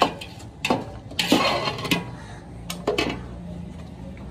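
A long steel slotted spoon scraping and knocking against a steel cooking pot as pieces of boiled beef are stirred and browned in ghee. A series of irregular clanks and scrapes, about six or seven, in quick succession.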